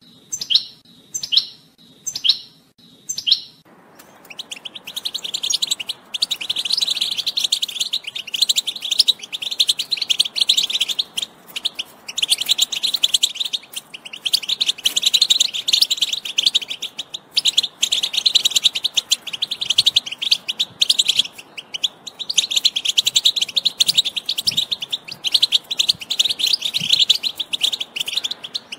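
European goldfinch singing. A handful of separate falling notes at the start give way to a long run of rapid, high twittering song, broken only by brief pauses.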